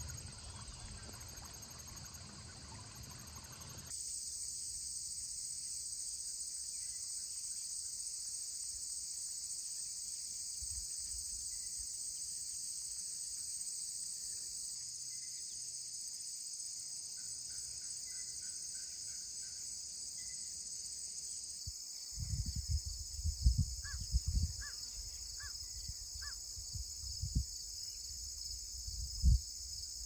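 Steady chorus of late-summer insects such as crickets: a continuous high-pitched trill that grows louder about four seconds in. In the last third there are low rumbling bumps on the microphone and a few short chirps.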